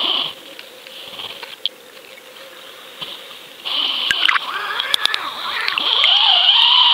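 Water rushing and scraping against an underwater camera housing as it is hauled up on a fishing line. It is quieter at first and grows louder about halfway through, with wavering squeaky tones and a few sharp clicks.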